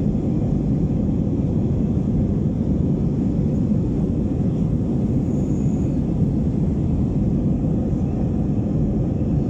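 Steady low roar inside a jet airliner's passenger cabin in flight after takeoff: engine and airflow noise.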